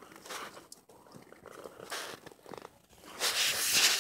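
Wet nylon gill net being pulled by hand over a boat's gunwale, scraping and rustling irregularly with small clicks, louder near the end.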